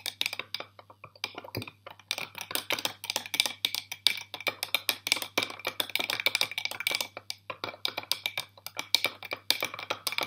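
Metal teaspoon stirring fast in a small glass jar of watery glitter glue, clicking and clinking against the glass many times a second. The stirring briefly eases about a second in and again around seven seconds in.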